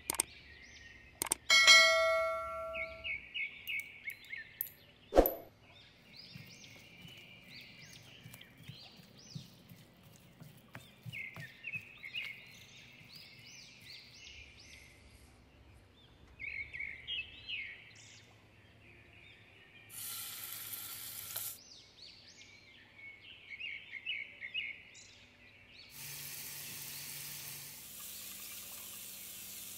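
Birds chirping in short calls throughout. Near the start a sharp click and a bell-like ding, the sound of an on-screen subscribe button. From about 26 s a steady hiss of chicken pieces sizzling in hot oil in a frying pan.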